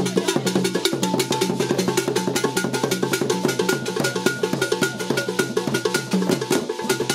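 Traditional Ghanaian hand drums played in a fast, dense, interlocking rhythm, with a short high ringing note struck over and over in time with them.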